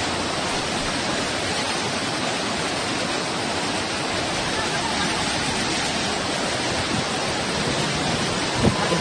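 Fast-flowing floodwater rushing down a street in a flash flood: a loud, steady rush of water.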